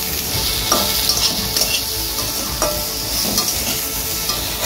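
Cubed brinjal, potato and beans sizzling in hot oil in a metal kadai while a metal spatula stirs and tosses them, scraping and knocking against the pan a few times.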